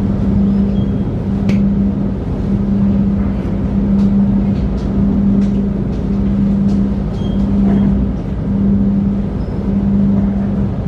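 Passenger train running: a steady low hum that dips about once a second, over a broad rumble, with scattered sharp clicks.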